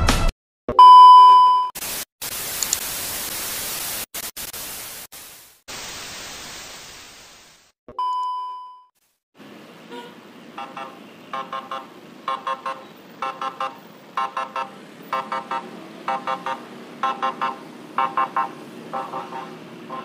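Edited intro effects: a short steady beep, a few seconds of static hiss that fades away, then a second beep. About nine seconds in, vehicle horns start tooting in quick double toots about once a second, over a steady low rumble of motorbike and traffic.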